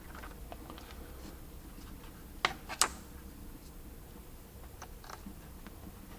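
Small plastic clicks and taps as a wiring connector is handled and pushed into a backup camera module, with two sharper clicks about two and a half seconds in.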